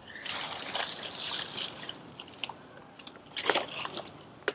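Plastic bottles and wrappers rustling and crinkling as they are gathered up by hand and pushed into a bag. There is a dense burst of crackling in the first two seconds and a shorter one about three and a half seconds in.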